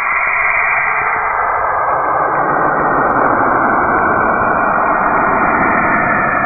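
Planetary electromagnetic emissions converted to sound: a dense, steady hiss with rumble underneath that thickens over the first couple of seconds.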